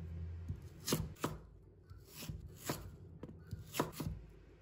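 Kitchen knife cutting through a raw root vegetable onto a wooden cutting board: about six sharp chops, spaced unevenly and mostly in pairs.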